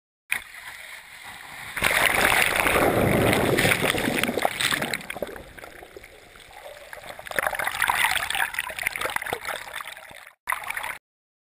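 Shallow surf washing and splashing around a camera at the waterline, surging up twice, about two and about eight seconds in, then cutting off abruptly near the end.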